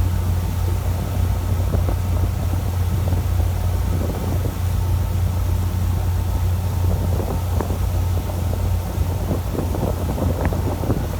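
Fishing boat's engine droning steadily, with wind noise on the microphone and irregular splashing and knocking from about four seconds in.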